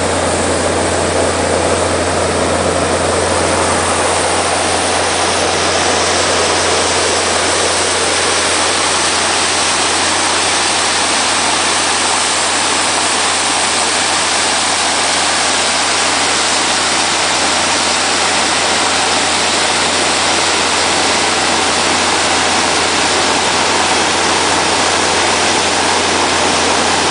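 Sand dredge's engine and pump running steadily, a constant low hum under the loud rushing of sand-laden water pumped out through the discharge pipe.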